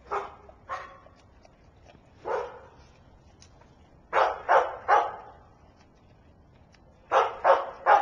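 Dog barking in short bursts: two barks, a single bark, then two runs of three quick barks.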